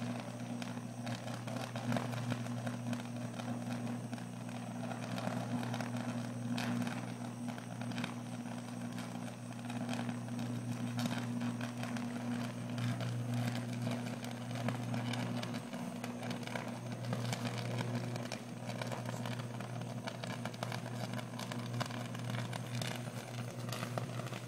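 Pole-mounted utility transformer arcing after a fault: a steady low electrical buzz with continuous crackling and sizzling from the arc.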